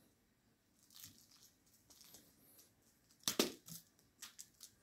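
Scratchy rustling and crunchy scuffs on a fabric blanket as a cat plays with a toy mouse on a string. A few faint rustles come first, then a quick cluster of sharp scuffs a little over three seconds in.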